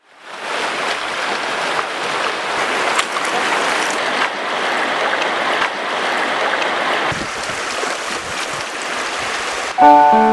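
Shallow river rushing over rocks, a steady hiss that fades in at the start. Piano music begins near the end.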